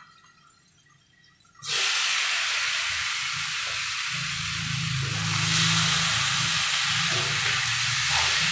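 Chopped wild mushrooms going into a wok of hot oil and fried spice paste, setting off a sudden loud sizzle about two seconds in that keeps going steadily while they are stirred with a metal spatula.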